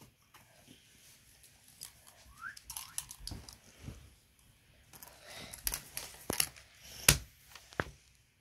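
Plastic and silicone fidget toys being handled and set down on a sheet of paper: scattered light taps, clicks and paper rustles, the sharpest tap about seven seconds in.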